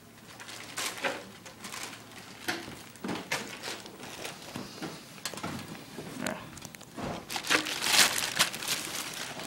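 Packaging crinkling and rustling, with scattered small clicks and knocks as the RC truck and its body and clips are handled; it gets busier and louder near the end.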